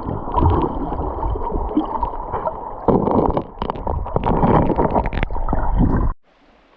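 Water heard through a submerged camera: a muffled, rushing gurgle with many knocks and bumps against the camera. It cuts off suddenly about six seconds in.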